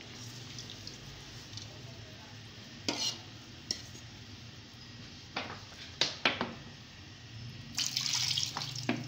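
Semolina roasting in ghee in a steel pan for suji halwa, bubbling and sizzling before the sugar syrup goes in. A few sharp pops or ticks come through the middle, and there is a louder rustling rush near the end.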